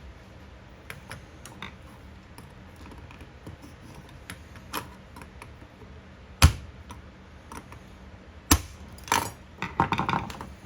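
Small metal clicks and clinks of hand tools and parts as a fog light is taken apart for scrap, with two sharp knocks about six and a half and eight and a half seconds in and a cluster of clatter near the end.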